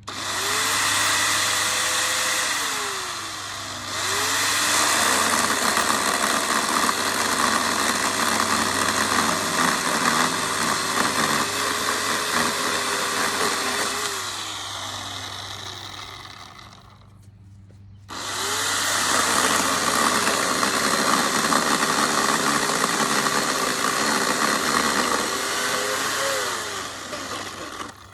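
Chainsaw engine revving up and cutting through dead tree wood in two long runs: each time the engine pitch climbs, drops and holds steady while the chain is in the wood, with a brief dip a few seconds in. The first run eases off over a few seconds, and a second starts sharply after a short break.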